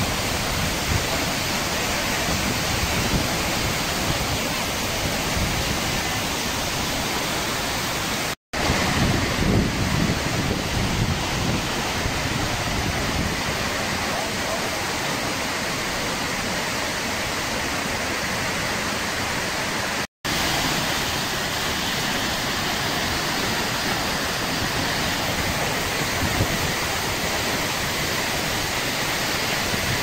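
Steady rush of Tortum Waterfall's water pouring over the cliff into its pool, broken by two very short drops to silence about eight and twenty seconds in.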